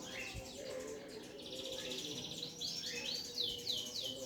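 Small birds chirping, ending in a quick series of falling whistled notes, about four a second.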